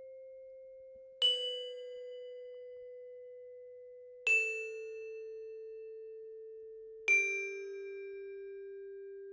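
Bell-like notes struck on a tuned percussion instrument, three times about three seconds apart. Each is a step lower than the last and left to ring: a slow descending scale.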